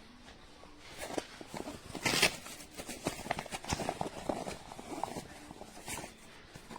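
Irregular knocks, clicks and rustling of something being handled, with a loud rustle about two seconds in.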